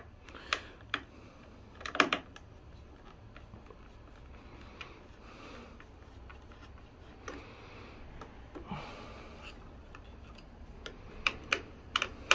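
Scattered sharp clicks and taps of tools and small parts being handled during a repair of a kite-line winding machine, the loudest about two seconds in and a quick run of four near the end, over a low steady hum.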